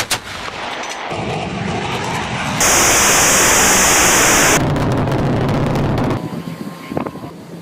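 A quick string of loud clips. An AK-47 gunshot comes right at the start, followed by rumbling noise. A sudden, very loud dragster run cuts in about two and a half seconds in and stops abruptly about two seconds later. A space shuttle launch rumble comes near the end.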